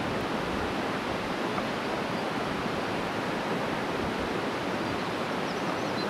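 Mountain stream rushing: a steady, even wash of water noise with no birdsong over it.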